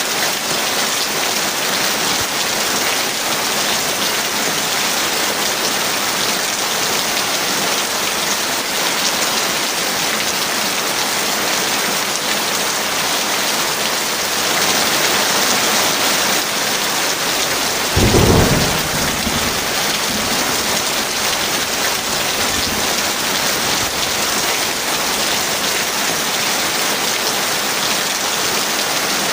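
Heavy rain falling steadily, with a single clap of thunder about two-thirds of the way through, sudden and loud, then rumbling away over a few seconds.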